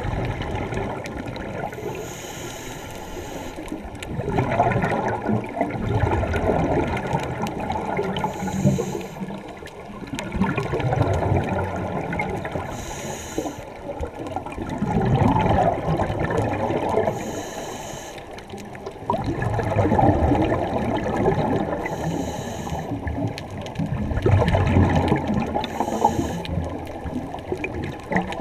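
Scuba diver's regulator breathing heard underwater. About six breaths: each is a short hissing inhale followed by a few seconds of rumbling, bubbling exhale.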